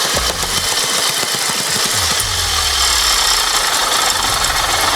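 Two-stroke Robin engine of a Mikasa MT-75H jumping-jack tamper running steadily with a rattling engine note, started without choke and running well again after water was cleared from its fuel.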